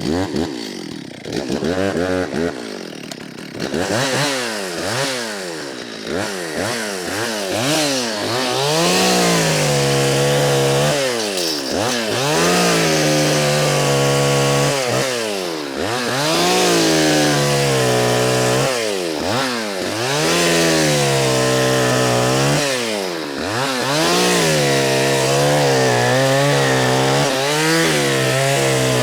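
Two-stroke chainsaw bucking a felled Araucaria columnaris (Cook pine) trunk into firewood rounds. The engine repeatedly revs up and drops back, and in the later part it holds longer steady stretches at high revs while cutting through the log.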